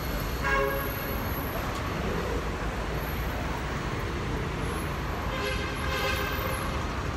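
Steady city street traffic noise, with a vehicle horn sounding twice: once about half a second in and again near the six-second mark, each lasting about a second.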